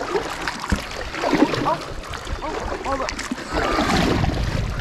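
Double-bladed kayak paddles dipping and splashing in river water beside an inflatable kayak, with water noise throughout. Voices are heard faintly in the background.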